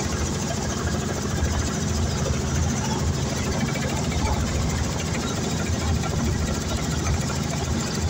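Robinson R44 II helicopter's piston engine and rotor running steadily, heard from inside the cabin.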